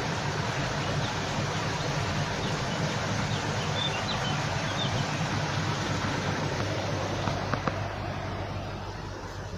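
Steady rush of running water, with a few faint high bird chirps about halfway through and a couple of light clicks near the end.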